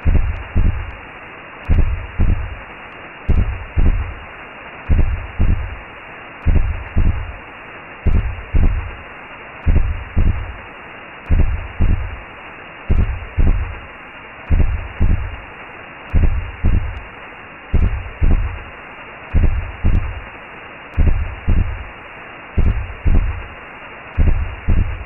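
Recreated womb sound, as heard by a baby inside the mother: a slow heartbeat in low double beats (lub-dub), one pair about every second and a half, over a steady whooshing hiss.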